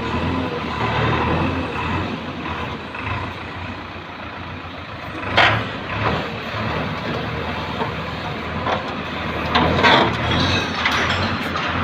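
Backhoe engine running steadily while it digs, with two short, louder bursts of noise, one about halfway through and one near the end.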